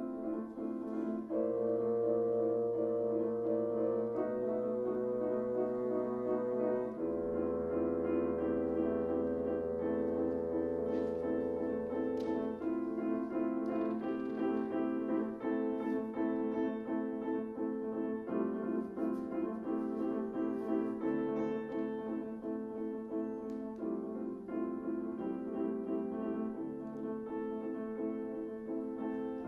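Bassoon and piano playing a lively contemporary classical duo passage, with held notes shifting every second or two over the piano part.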